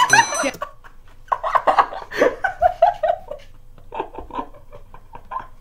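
A man laughing hard in broken bursts, which trail off and grow quieter toward the end.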